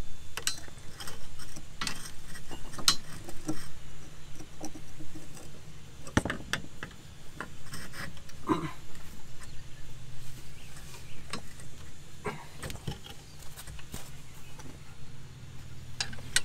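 A steel coil spring with a Firestone air helper spring inside it being pushed and turned by hand into its seat on a lower control arm: irregular metallic clicks, knocks and short scrapes, over a faint low hum.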